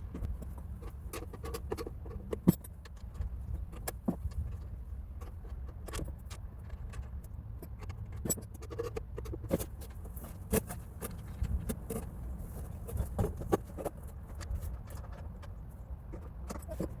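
Irregular small metal clicks and clinks of bolts, nuts and parts being handled and fitted during assembly of a snow pusher, the sharpest about two and a half seconds in, over a steady low rumble of wind on the microphone.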